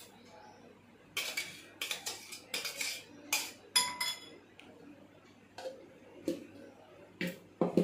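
Steel mixer-grinder jar knocked and clinked against a glass bowl while the ground betel-leaf paste is tipped out: a quick run of sharp metallic clinks, some ringing briefly, then a few duller knocks near the end.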